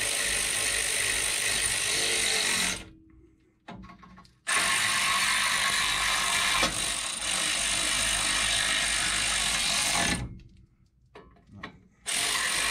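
Pneumatic air ratchet running in two long bursts of hissing and ratcheting on a wheel spindle nut, stopping twice for a second or two with a few clicks between, then starting again near the end. The nut is being turned until a cotter-pin hole lines up.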